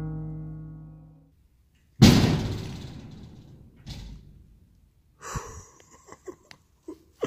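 A sustained music tone fades out; then, about two seconds in, a door slams shut with one loud bang that rings and echoes away. A softer knock follows about two seconds later, then a few light clicks and taps.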